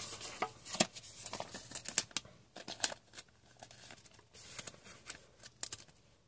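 Trading cards being handled and flipped, with their packaging rustling: irregular sharp card clicks and short crinkles that die away near the end.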